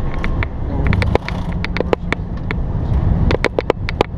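Airbus A320 rolling down the runway after landing, heard inside the cockpit as a steady low rumble. Scattered sharp clicks and knocks run through it, coming closer together near the end.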